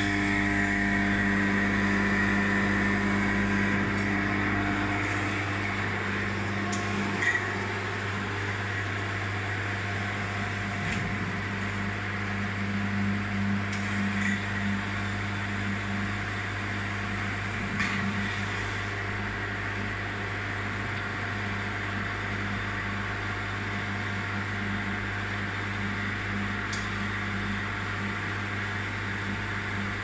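Double-head keg washer running: a steady motor hum with a hiss, louder in the first few seconds, and a few short sharp clicks spread through.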